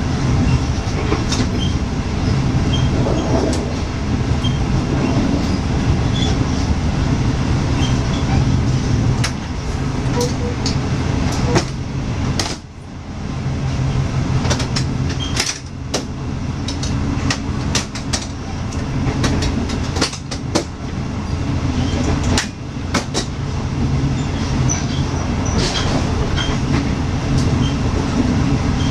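State Railway of Thailand sleeper carriage running, heard from inside: a steady, loud rumble of wheels on rails, with frequent sharp clicks and knocks.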